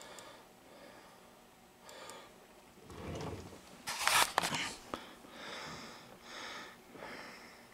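Faint breaths or sniffs close to the microphone, coming about once a second in the second half. A louder rustle of handling noise comes about four seconds in, as the camera is swung around.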